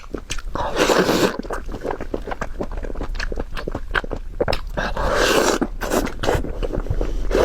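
Close-miked mouth sounds of someone eating braised pork knuckle: chewing and wet smacking in many quick clicks. Two longer noisy stretches come about a second in and again around five seconds in.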